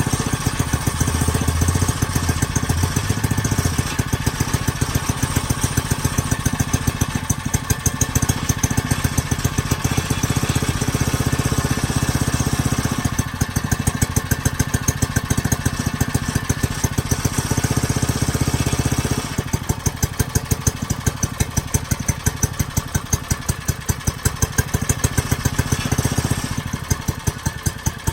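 Pocket bike's small engine running through a custom-fabricated exhaust, with a steady, rapid pulse. It drops back noticeably about two-thirds of the way in and again near the end.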